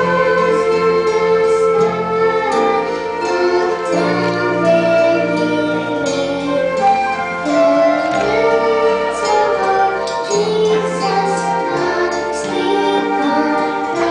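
A young girl singing a Christmas song solo into a microphone, over an instrumental accompaniment with bass notes.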